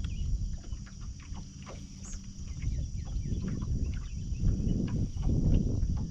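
Outdoor summer ambience: a steady high insect drone with scattered bird chirps over a low rumble, which grows louder about three seconds in.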